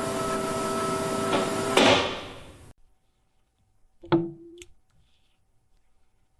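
A steady mechanical hiss with a hum of several steady tones, which swells into a louder burst and cuts off. Then a sharp knock with a short ringing tone about four seconds in, followed by a small click.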